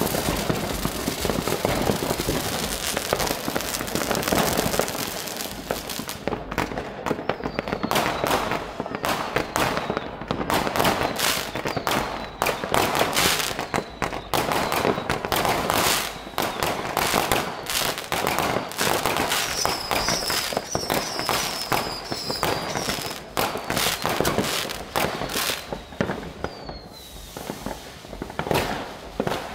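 Many consumer fireworks going off at once: a continuous rattle of firecracker bangs and crackling, with a few high whistles now and then.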